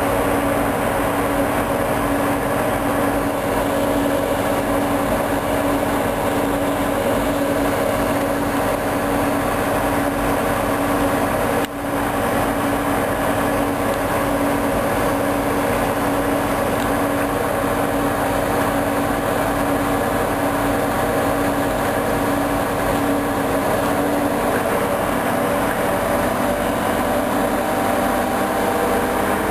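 Hoover DYN 10124 DP washing machine on a spin cycle, its drum and motor running with a steady hum and whine, with a momentary break about twelve seconds in.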